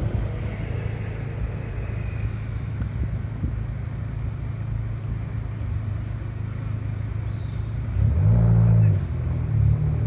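Steady road-traffic rumble, with one vehicle's engine louder for about a second near the end, its pitch rising and then falling.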